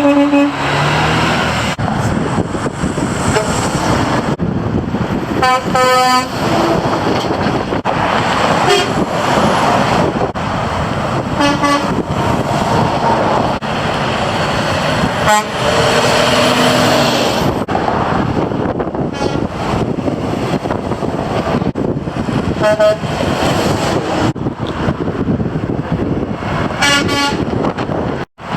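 Semi-trucks passing on a road and sounding their air horns: a series of chord-like horn blasts several seconds apart, some short and some held a second or two, over steady traffic and truck engine noise.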